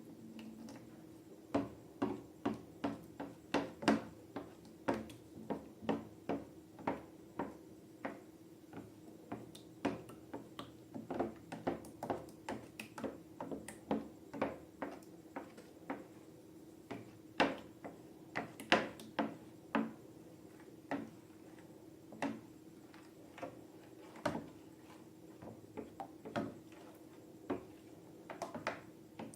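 Slime being squeezed and worked by hand, giving an irregular run of short sharp pops and clicks, about one to three a second, over a faint steady hum.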